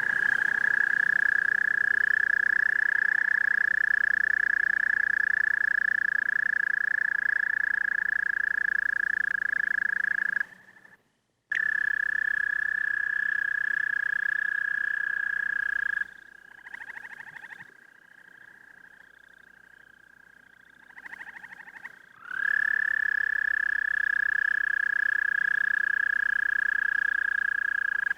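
American toads trilling: long, steady, high-pitched trills lasting several seconds each, three in all, with a brief gap about ten seconds in. Between the second and third trill, fainter short trills from other toads are heard.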